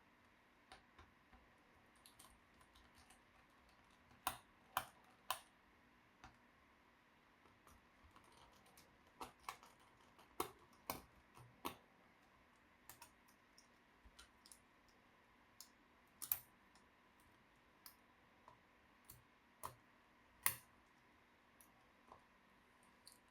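Irregular small sharp clicks and taps, such as plastic laptop parts and tools being handled. There is a quick run of three louder clicks about four seconds in, and single louder ones near the middle and toward the end.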